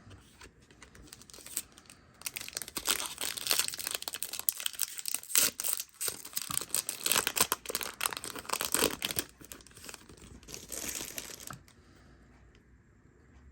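Foil Yu-Gi-Oh! booster pack wrapper crinkling and tearing as it is opened, with dense crackling for several seconds that stops about two seconds before the end.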